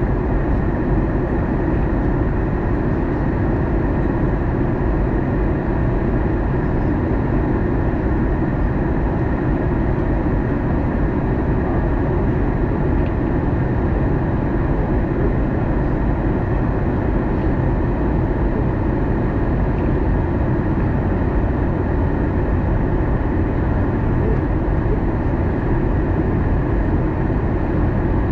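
Steady cabin noise inside an Airbus A321 on approach: a continuous low rumble of engine and airflow, with a faint steady hum above it.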